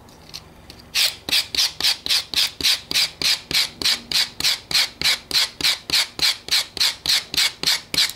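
Wire brush scraping in quick, even strokes over a yucca leaf on a wooden board, about three to four strokes a second starting about a second in, stripping the leaf's flesh to free the fibres at the tip.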